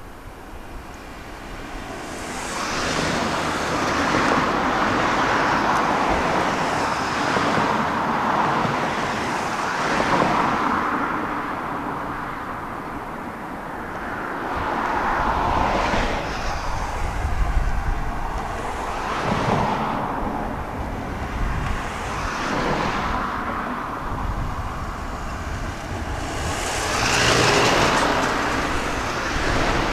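Road traffic: several cars passing one after another, each swelling and fading, with a louder pass near the end.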